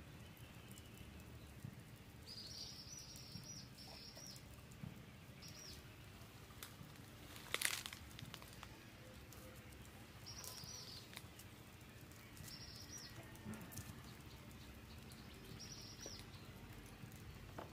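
Quiet outdoor background with short, high bird chirps that come in small groups every few seconds, and a single sharp knock about eight seconds in.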